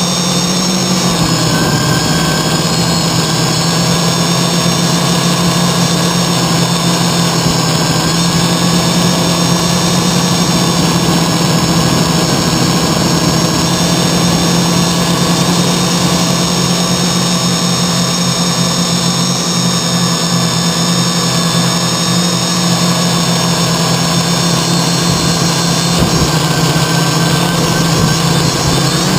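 CarbonCore Y6 multirotor's six brushless motors and propellers running in flight, heard through a GoPro hard-mounted on the frame: a loud, steady drone with a strong low hum and several high whining tones.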